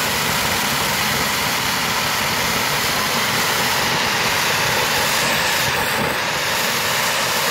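Desi anar (flowerpot firework) burning under a stainless steel glass, its jet of sparks and flame spraying up through the glass with a steady rushing hiss.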